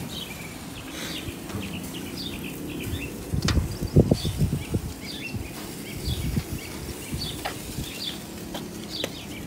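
Small birds chirping repeatedly in the background, with a cluster of dull thumps and rumbles about three to five seconds in.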